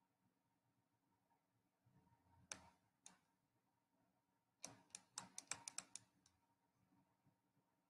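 Light clicks against near silence: two single clicks, then a quick run of about eight over a second and a half.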